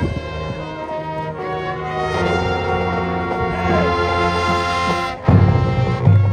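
High school marching band playing, its brass section holding full sustained chords that swell louder. About five seconds in there is a brief break, followed by heavy, loud low accents.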